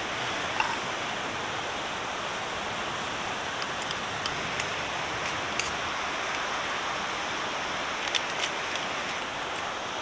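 Steady sizzling hiss of chili con carne pasta cooking in a pan over a campfire, with a few small sharp pops scattered through it.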